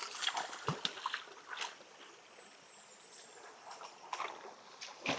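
Faint trickling water, with a few scattered light knocks and rustles.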